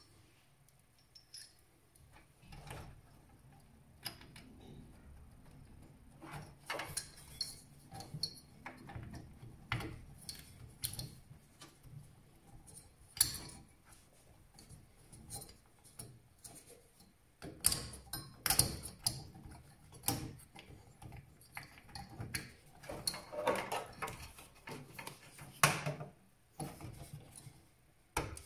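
Irregular clicks, light knocks and clatter of plastic and metal parts being handled while a stock Intel CPU cooler is fitted back onto the motherboard, with a faint low hum underneath. The loudest clatter comes a little past the middle and again near the end.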